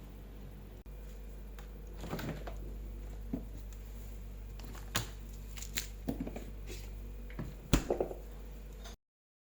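Light clicks, taps and small knocks of kitchenware being handled over a steady low hum, with one sharper click near the end before the sound cuts out.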